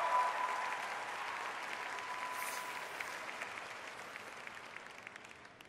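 Arena audience applauding a figure skating pair's finished program. The clapping slowly dies away and is nearly gone by the end.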